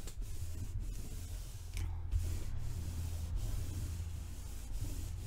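Steady rubbing on paper, a hiss-like scraping that breaks off briefly several times, over a low steady hum.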